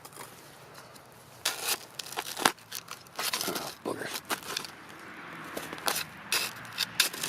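Irregular crunching, crackling and scraping noises in short clusters, with a few sharp clicks; no steady sound.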